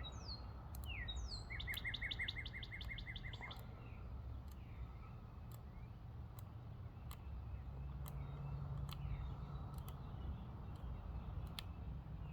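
A songbird calling: a few short falling chirps, then a quick trill of about a dozen notes, all in the first few seconds. Faint scattered clicks and a steady low rumble run underneath.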